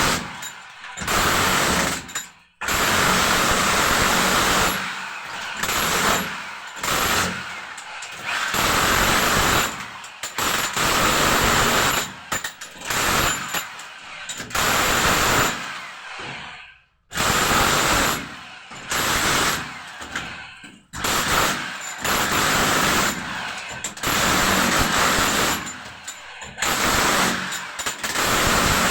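Electric power drill run in repeated bursts of one to three seconds with short pauses between, typical of drilling into a wall.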